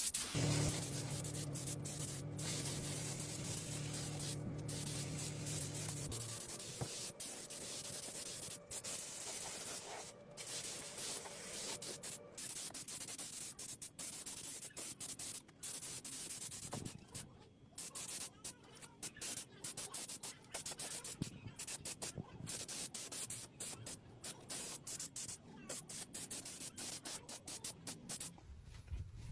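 Hand sanding and rubbing on metal restoration parts, a scratchy hiss that stops and starts in short cut-together stretches. A steady machine hum runs under it for the first six seconds or so.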